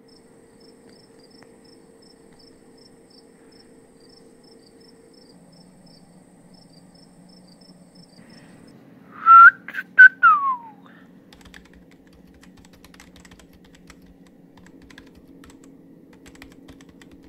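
A person whistling about nine seconds in: two short high notes, then one that slides down. Faint keyboard typing follows over a low steady hum.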